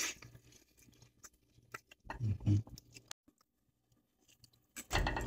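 A person biting into a grilled seafood skewer and chewing, with faint mouth clicks and a brief vocal "mm" about two seconds in. A louder burst of noise comes near the end.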